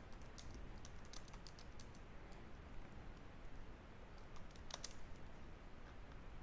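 Faint typing on a computer keyboard: a quick run of keystrokes in the first two seconds, then scattered single keystrokes, with one louder click a little before five seconds in.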